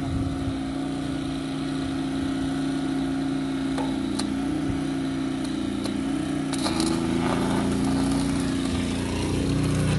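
Philking 4200 inverter generator's engine running steadily, its pitch stepping up about two-thirds of the way through, with a few faint clicks.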